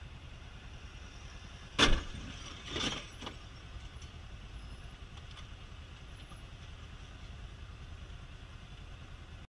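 Steady low rumble of a motorcycle engine and surrounding traffic in slow city traffic. About two seconds in comes one sharp, loud knock, followed about a second later by a weaker, rougher one.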